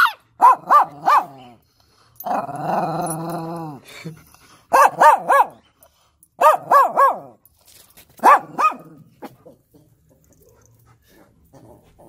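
Two Chihuahuas yapping in quick bursts of two or three high yaps at a time, with one longer, rougher, growl-like cry about two seconds in. The yapping dies away after about three-quarters of the way through.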